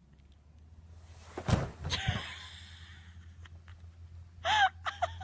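A person going down a snow-covered plastic slide and landing in the snow: two soft thumps about a second and a half in, then a faint swishing of snow. About four and a half seconds in comes one short vocal cry that falls in pitch.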